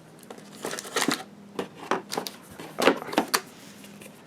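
Small board-game cubes clicking and rattling against each other as they are handled, a quick series of sharp clicks over a few seconds.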